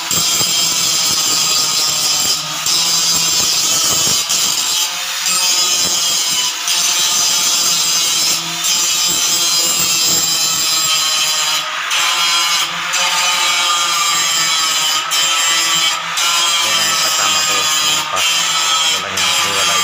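Angle grinder cutting into steel square tubing, running steadily under load with several brief dips as the disc eases off the metal.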